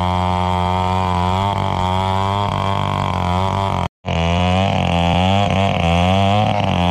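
Two-stroke gasoline chainsaw running at full throttle, ripping lengthwise along the grain of a santol log to saw it into planks. The engine note holds steady, its pitch wavering slightly under the load of the cut, and drops out for an instant just before the middle.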